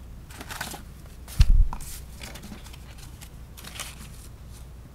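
Paper and a plastic sleeve being handled on a tabletop: soft rustles and clicks, with one dull thump about a second and a half in.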